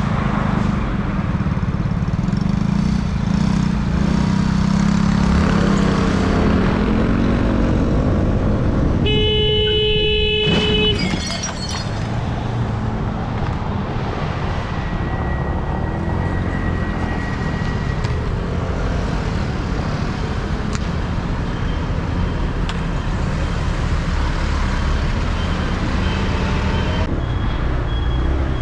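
Vehicle engine and road noise recorded by a dashcam in traffic, with the engine pitch wavering early on. A horn sounds steadily for about two seconds about a third of the way in.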